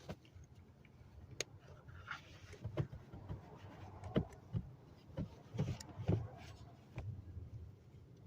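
Scattered clicks and knocks of seatbelt parts being handled and forced into place, thickest in the middle, over a low steady hum.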